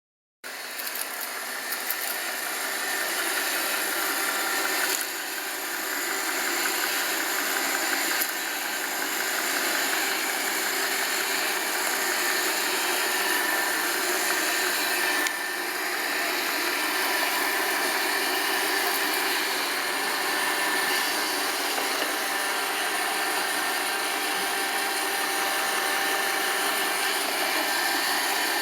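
iRobot Roomba 780 robot vacuum running as it cleans: a steady whir of its vacuum motor and brushes with a high whine, shifting briefly in level a few times.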